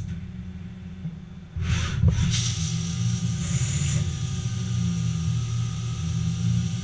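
Haas ST10 CNC lathe running with a steady low hum; about a second and a half in, a sudden rush as the tool turret moves in and flood coolant comes on, then a steady coolant-spray hiss over faint machine whine.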